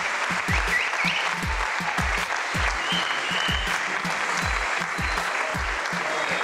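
Audience applauding over background music with a steady bass-drum beat of about two beats a second.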